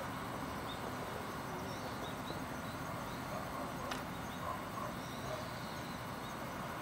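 Steady outdoor background noise with faint, scattered bird chirps, and one sharp click about four seconds in.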